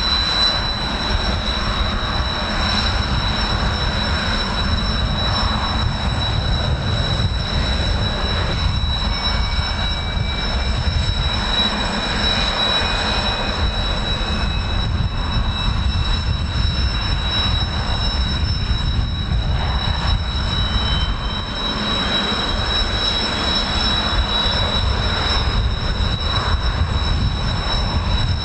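Kawasaki T-4 jets' turbofan engines running with a steady high whine over a heavy low rumble. A fainter tone slowly rises in pitch over about fifteen seconds from about a third of the way in.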